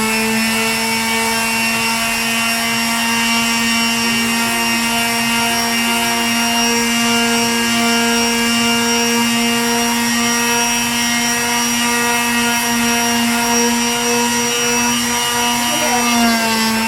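Electric sander running at full speed while sanding, a steady high-pitched hum like a vacuum cleaner. Its pitch sags briefly near the end, then recovers.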